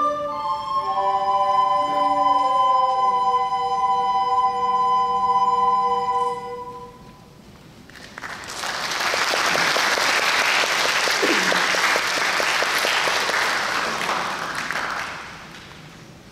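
A small wind ensemble holds and ends its final sustained chord, which dies away about seven seconds in. About a second later the audience applauds for about seven seconds, the clapping fading out near the end.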